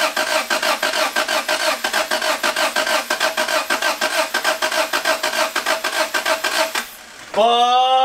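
1993 Honda Civic's B18B1 four-cylinder engine cranked on its starter in a steady, rapid chug for about seven seconds without catching: a no-start despite a new igniter in the distributor, which leaves the ignition coil as the owner's suspect. The cranking stops near the end and a long drawn-out groan follows.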